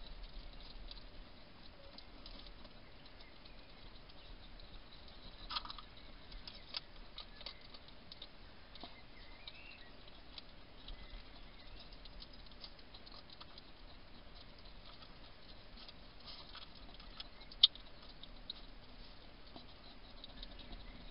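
Wild hedgehog eating from a food dish: faint, irregular crunching and clicking of chewing, with one louder sharp click late on.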